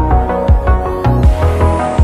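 Electronic background music with a steady heavy beat; a hissing sweep swells in about halfway through.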